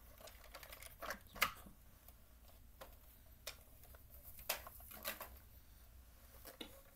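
Scattered plastic clicks and knocks from a Bruder toy excavator's arm and bucket being moved by hand, the loudest about a second and a half in.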